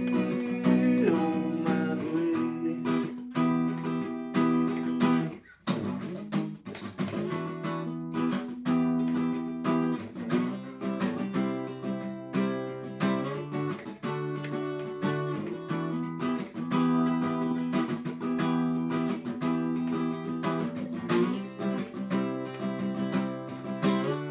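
Steel-string acoustic guitar strummed in a funky rhythm: held chords cut by quick, sharp percussive strokes. The playing breaks off briefly about five and a half seconds in, then resumes.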